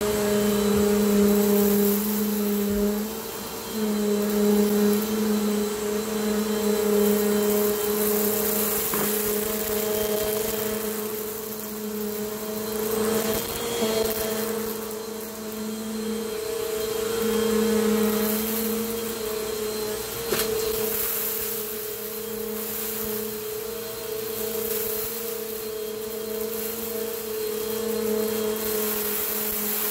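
Bissell PowerForce upright vacuum cleaner running on medium-pile carpet: a steady motor hum under a hiss of suction that swells and fades every few seconds as the vacuum is pushed back and forth.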